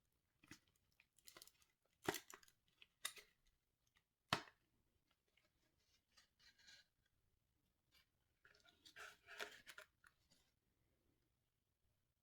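Packaging being handled by hand: scattered crinkles and rustles with a few sharp clicks, and a longer rustle about eight and a half seconds in.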